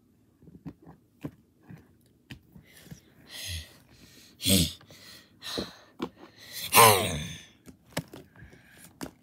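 Plastic toy animal figures clicking and knocking together in a play fight, with a person making vocal fight noises for them: a hiss, short breathy bursts and one louder wavering cry about seven seconds in.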